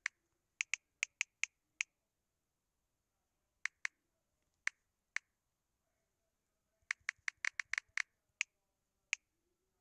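Smartphone on-screen keyboard clicking as keys are tapped to delete and retype a password. There is a quick run of about six clicks, then a few spaced clicks, then a fast run of about a dozen clicks near the end.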